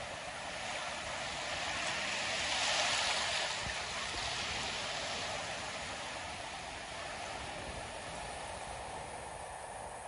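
Ocean surf breaking and washing up the beach, a steady rush that swells to its loudest about three seconds in and then eases off.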